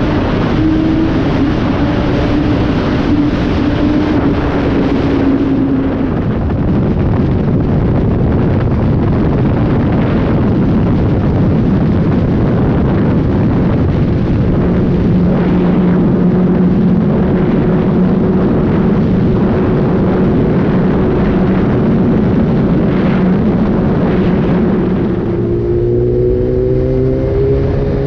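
Suzuki GSX-R sport motorcycle engine running while riding, under heavy wind rush on the microphone. The engine note holds fairly steady for most of the time, then rises near the end as the bike accelerates.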